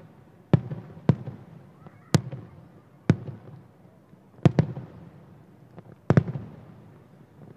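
Aerial firework shells bursting about 1 km away: about six sharp booms at irregular intervals, two of them doubled, each trailing off in a rolling, echoing rumble.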